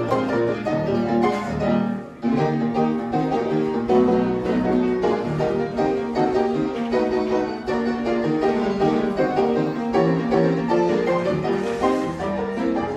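Background music: a piano-led, classical-style piece playing steadily, with a brief dip about two seconds in.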